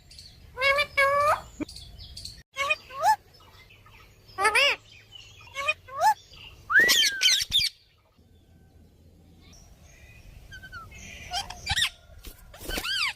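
Parrot calling in a series of short whistled and chirping calls with gaps between them, a louder drawn-out rising-and-falling call about seven seconds in, and a quieter spell before a few more calls near the end.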